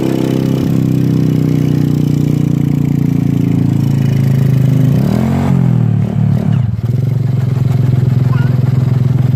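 Small motorcycle engine running steadily while riding, with its pitch swinging briefly up and down about five to six and a half seconds in.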